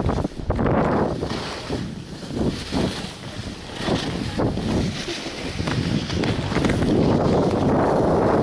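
Wind buffeting the microphone of a camera carried by a skier on a downhill run, a rushing rumble that eases in the middle and builds up again toward the end.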